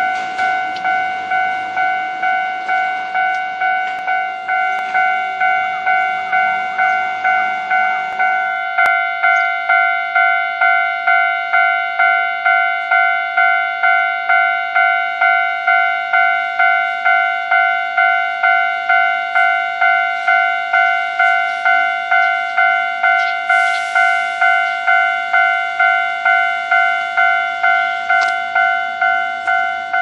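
Japanese railway level-crossing warning bell ringing on and on, about one and a half strikes a second. Under it, a Hankyu electric train rumbles past for the first eight and a half seconds, then cuts off suddenly.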